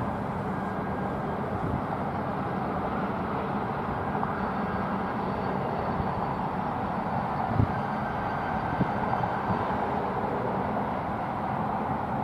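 Freight train running past: a steady rumble with faint steady tones, and a few sharp knocks around the middle, one louder than the rest.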